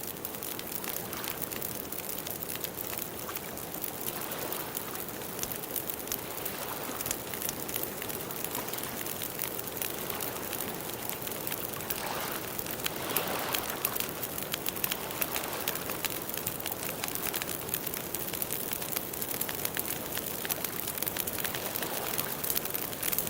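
Wood campfire burning, with many small sharp crackles and pops over a steady hiss of flames.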